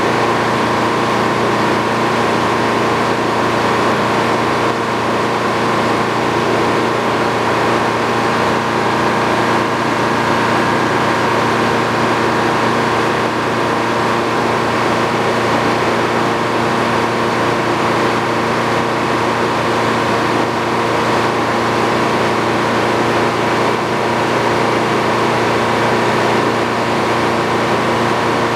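Sawmill running steadily, its engine under a constant load as the saw cuts a beam into boards.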